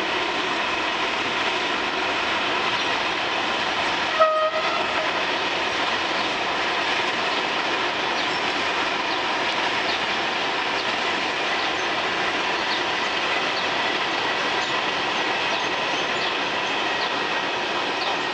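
Freight train of covered goods wagons rolling past, a steady loud noise of steel wheels on rail with a ringing undertone. A short horn blast sounds about four seconds in. The noise starts to fade right at the end as the last wagons go by.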